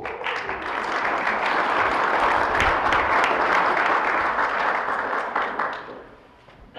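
Audience applauding, fading away after about five and a half seconds.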